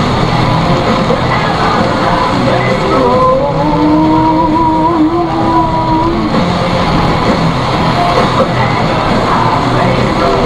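Rock music playing inside a moving car, with long held notes a few seconds in, over a steady hiss of tyres on a wet road.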